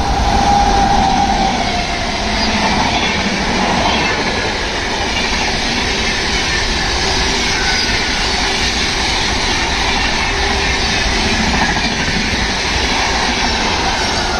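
A train passing through the station at speed without stopping: a steady, loud rush of wheels on the rails and coaches going by.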